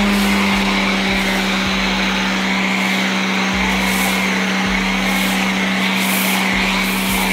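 Giraffe Tools Grandfalls electric pressure washer running with a steady hum while its foam cannon sprays snow foam in a steady hiss.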